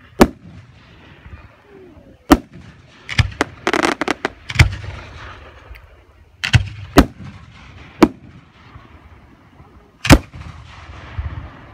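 Aerial firework shells bursting overhead: a string of sharp booms at uneven gaps of about one to two seconds, with a burst of rapid crackling a little under four seconds in.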